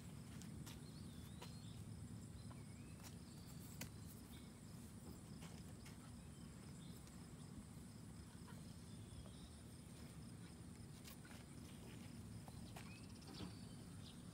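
Near silence: faint outdoor background with a low steady hum, a few soft clicks and some brief high chirps.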